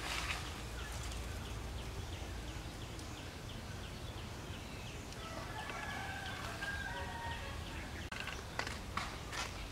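A rooster crowing, one drawn-out call about halfway through, over a run of high chirps at about four a second. Near the end come a few short cracks of dry twigs as a young macaque clambers over a woodpile.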